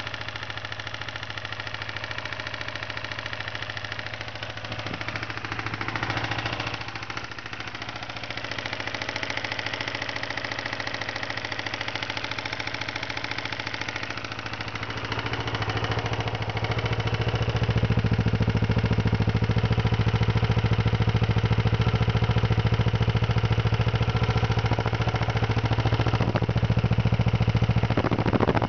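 1992 Kawasaki Ninja 250's parallel-twin engine running at idle, rising briefly about six seconds in and running louder from about seventeen seconds on; the sound of an engine whose owner puts it down to bad rod bearings.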